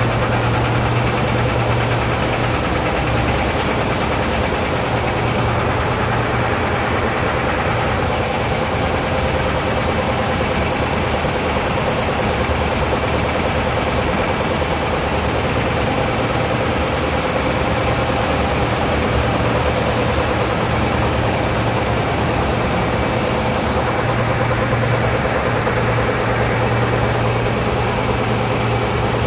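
Diaper production line running at speed: a steady, dense machine noise with a constant low hum.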